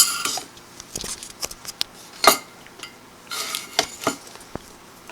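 Irregular clicks and clinks of small hard objects being handled and set down, with a short clattering run a little past halfway.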